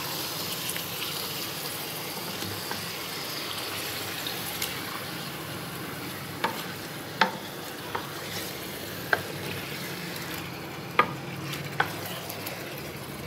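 Marinated chicken and ginger-garlic paste sizzling in hot oil and browned onions in a large metal pot while being stirred with a wooden spoon. In the second half the spoon knocks sharply against the pot several times.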